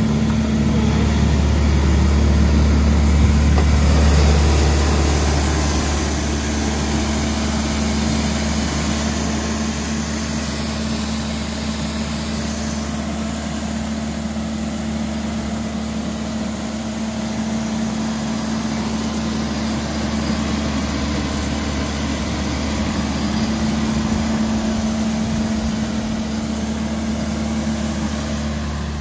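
Kubota diesel engine of a Kaeser M43 mobile air compressor running steadily at idle, a little louder in the first few seconds and then even.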